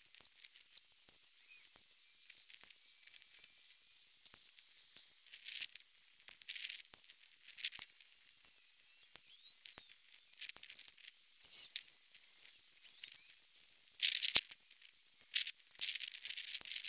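Bullet-casting work at a lead pot and six-cavity mould, sped up in a time lapse into a thin stream of high-pitched clicks and crackles, with a louder cluster of crackling near the end.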